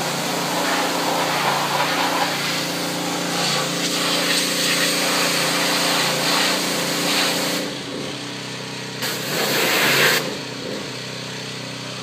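Pressure washer running: a steady engine note under the loud hiss of the high-pressure water spray blasting grime off an International T-340 crawler. The spray cuts out about two-thirds of the way through, comes back for about a second, then stops while the engine keeps running.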